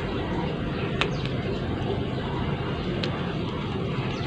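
A steady low background rumble, with two sharp clicks about two seconds apart as a small spinning fishing reel is handled.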